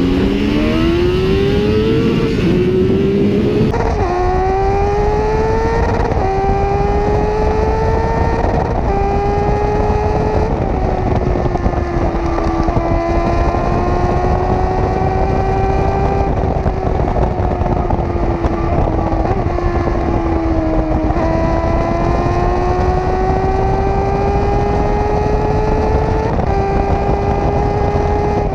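Sport motorcycle engine at high revs, accelerating hard through several quick upshifts in the first ten seconds or so, then held at a high, nearly steady pitch that dips briefly about 21 s in and climbs again, over heavy wind rush.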